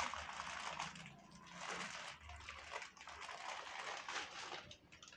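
Plastic packet of wheat flour rustling and crinkling in the hands as it is squeezed and shaken empty over a steel plate, in a few soft, uneven swells.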